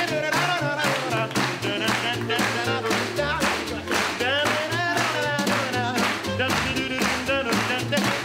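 Acoustic swing band playing: a snare drum keeping a steady beat, a walking upright bass line, strummed ukulele and a wavering lead melody on top.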